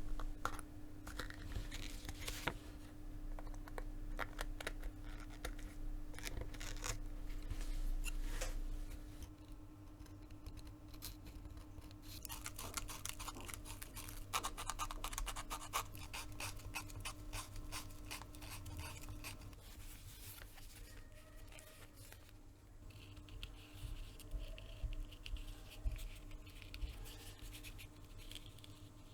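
Hand tools scratching, scraping and cutting at leather in irregular strokes, quickest about halfway through. A faint steady hum runs underneath.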